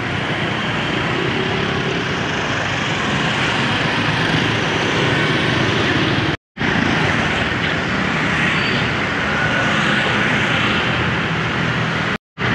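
Steady din of street traffic, vehicle engines running close by, cutting out to silence for a split second twice.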